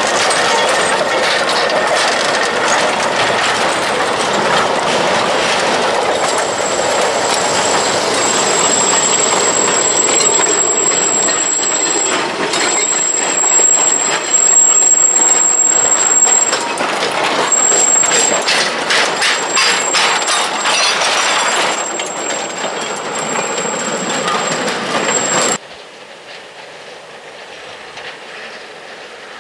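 A gravity-run train of narrow-gauge slate wagons rolling past with no locomotive: a steady rumble and clatter of iron wheels over the rail joints, with a thin high squeal running through much of it. Near the end the sound drops suddenly to a much quieter, more distant rolling.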